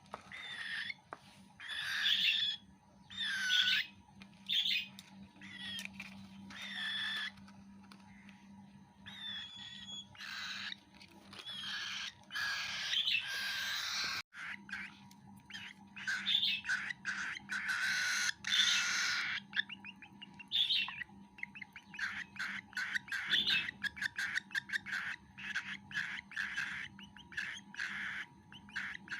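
Cockatiel chick's food-begging calls while being fed. Separate chirps come about once a second at first, then a fast run of short chirps, several a second, fills the second half.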